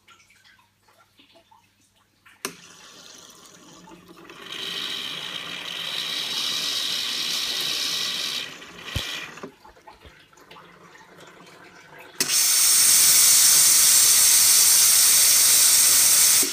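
Bremer Viva fully automatic coffee machine: a button click, then hot water hissing from its hot-water wand into a cup for several seconds. About twelve seconds in, a sudden, much louder high hiss of steam from the steam wand starts and cuts off sharply near the end.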